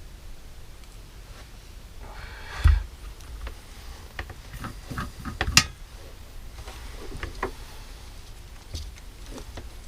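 Scattered clicks and knocks of small tools and parts being handled on a workbench while a capacitor is resoldered into a circuit board. There are two louder knocks, one about two and a half seconds in and one about five and a half seconds in.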